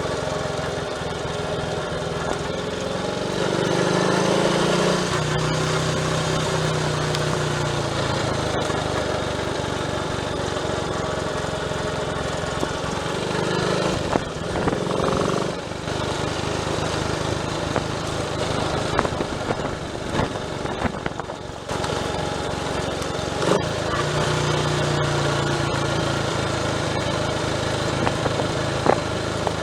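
Triumph Tiger Cub's single-cylinder four-stroke engine running on the move. Its note rises and falls with the throttle, easing off briefly a little past the two-thirds mark before picking up again.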